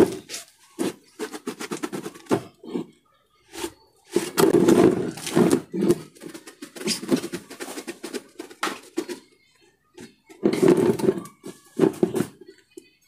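Nylon tent fabric rustling and flapping as the tent is lifted, shaken and folded, in three loud bursts with softer crinkling between.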